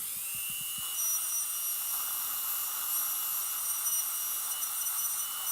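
High-speed dental air-turbine handpiece spinning up and running steadily: a high whine over a hiss of air and water spray.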